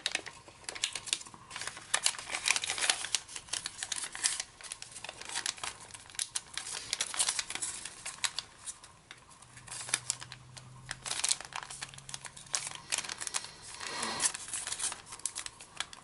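Origami paper rustling and crinkling in the hands as it is folded and creased, a string of quick, irregular crackles.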